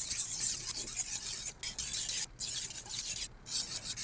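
Chef knife edge scraped back and forth on a 6000-grit whetstone in a series of strokes with short breaks between them: the fine polishing stage of sharpening.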